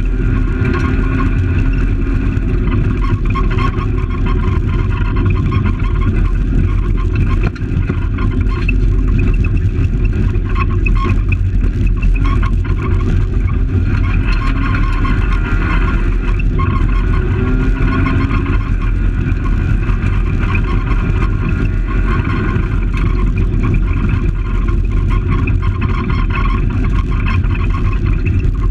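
Fiat Palio rally car's engine driven hard on a gravel stage, heard from inside the stripped cabin. Its pitch rises and falls as it accelerates and changes gear, over a steady din of tyre and gravel noise, with a brief dip in loudness about seven and a half seconds in.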